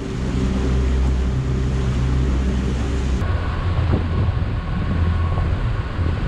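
Boat's outboard motor running steadily, with wind and water noise. About three seconds in, the engine's tone changes abruptly to a slightly higher hum.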